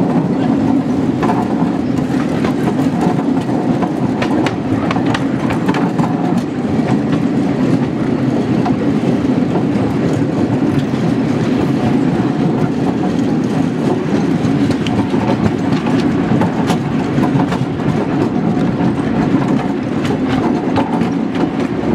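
Riding cars of a quarter-size miniature railroad rolling along the track: a steady rumble of steel wheels on the rails, with scattered clicks as the wheels pass over rail joints.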